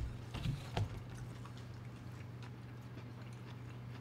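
Biting and chewing a hot sandwich on Dutch crunch bread: a few crunches of the crisp crust in the first second, then quieter chewing with faint scattered clicks over a steady low hum.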